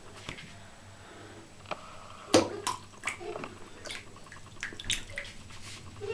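Water splashing and dripping in a bathtub as a cat moves about in the bath water, in scattered short splashes with the loudest about two and a half seconds in.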